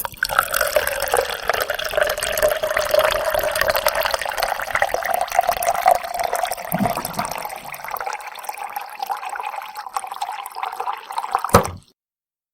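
Water running out of a large bottled-water jug into a container, with a steady tone that rises slightly. It ends suddenly about a second before the end with a brief thud.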